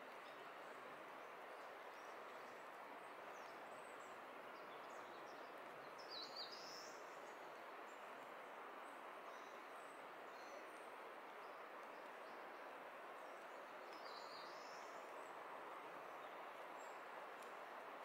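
Faint steady rush of a valley stream, with short bird chirps above it, the clearest about six seconds in and again near fourteen seconds.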